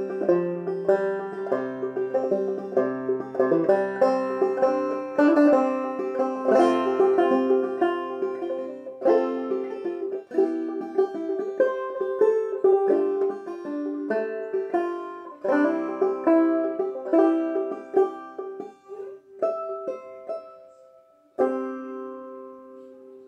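Five-string banjo played clawhammer style in double C tuning, picking out a melody with a steady rhythm. The notes grow sparser near the end, and a final chord struck about 21 seconds in is left ringing and fading away.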